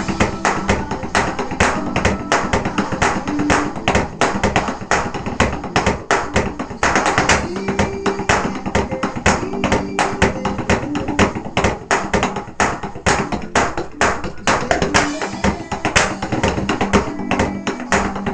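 Drumsticks striking the mesh pads and rubber cymbal pads of an electronic drum kit in a fast, steady run of hits, with music playing along underneath.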